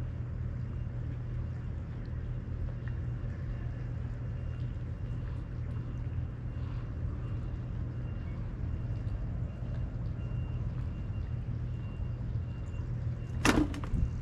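Steady low engine drone running throughout. About a second before the end comes one brief, sharp sound that falls quickly in pitch.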